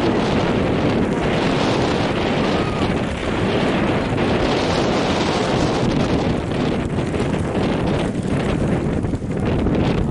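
Wind buffeting the camera microphone: a loud, steady rumble that rises and falls a little but never stops.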